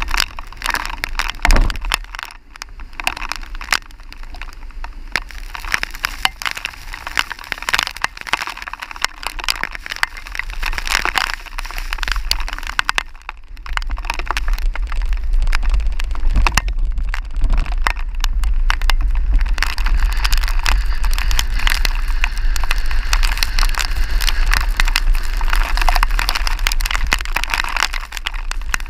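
Strong storm wind buffeting the camera microphone, with rain crackling; the low wind rumble grows heavier and louder about halfway through and stays that way.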